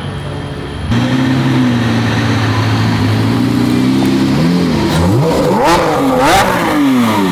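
Lamborghini Aventador SVJ's V12 engine, starting about a second in at a steady, even pitch, then revved in several quick blips, its pitch rising and falling over the last few seconds.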